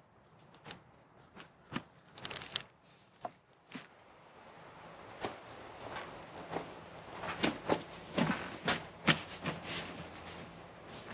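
Handling noise from a StreamTrail 55L bag: irregular rustling with sharp clicks and knocks. It grows busier and louder in the second half as the bag is set onto a motorcycle rear rack and fitted in place.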